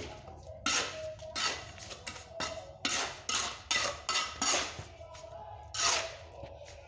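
A mason's trowel scraping cement mortar along a patched crack in a masonry wall: a run of short rasping strokes, one or two a second, with a brief pause about five seconds in.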